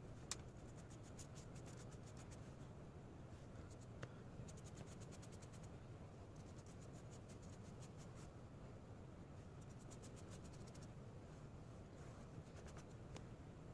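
Faint scratching of a paintbrush's bristles dragging paint across a paper notebook cover, coming in runs of fine ticks over a low steady room hum.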